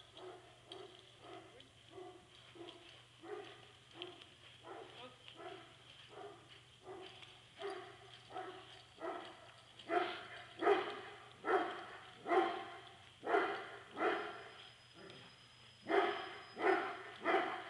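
A dog barking over and over, about two barks a second, getting louder about ten seconds in.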